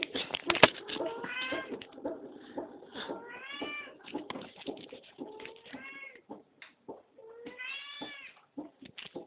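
A domestic cat meowing four times, each meow rising then falling in pitch, amid scattered short clicks and knocks.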